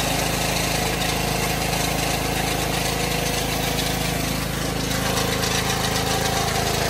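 Small-engine pressure washer running steadily while its round surface cleaner attachment sprays water across concrete.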